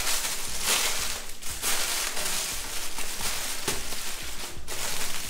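Oil paper and banana leaf rustling and crinkling as a parcel around a lamb leg is folded and pressed tight. The rustling comes in irregular spells with short pauses.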